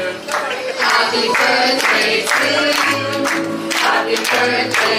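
Upbeat song with singing, and people clapping along to the beat about twice a second.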